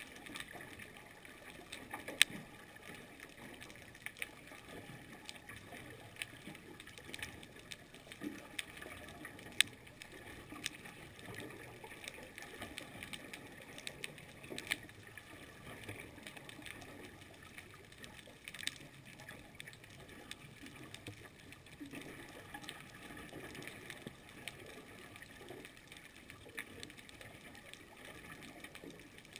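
Underwater ambience picked up by a camera in its housing: a steady, muffled hiss of the water, scattered with sharp clicks and crackles, with a few louder snaps, the strongest about two seconds in and near ten seconds.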